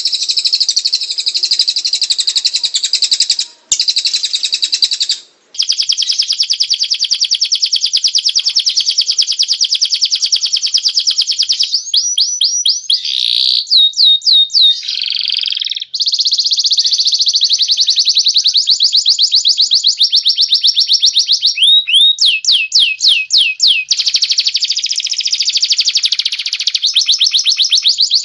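Songbird singing long runs of rapid, high trills of repeated notes, broken by two brief pauses in the first six seconds and by quick sweeping note runs about twelve seconds in and again a little after twenty seconds.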